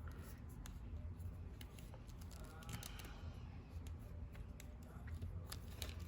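Plastic action figure being handled and posed: scattered light clicks and taps from its joints and hands, over a low steady hum.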